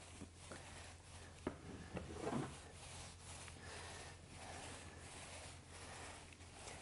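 Faint rubbing of a long-handled paint roller spreading wet water-based epoxy primer over a concrete floor, with a few light knocks and a short, louder scuff about two seconds in.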